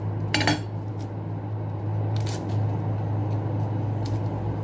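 A large kitchen knife cuts through an onion and knocks onto a wooden chopping block about half a second in. Then come a few faint crackles as the onion's papery skin is peeled by hand, over a steady low hum.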